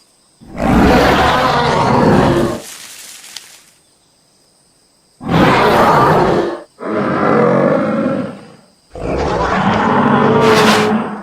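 A large animal roaring four times, each roar lasting about two seconds, with short silent gaps between them.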